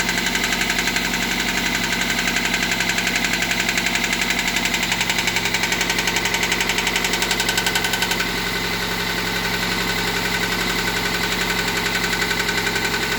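Toyota MR2 Mk3's 1.8-litre four-cylinder engine running steadily with a rapid, even knocking: an engine knock. The sound dips slightly about eight seconds in.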